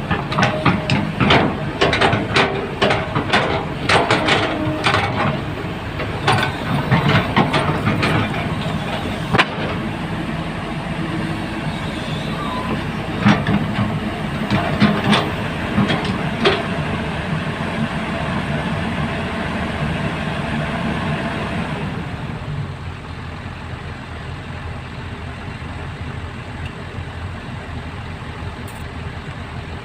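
Heavy earthmoving machine's diesel engine running, with a rapid series of sharp metallic clanks and knocks over the first half. The clanking dies away about two-thirds of the way through, leaving a quieter steady engine hum.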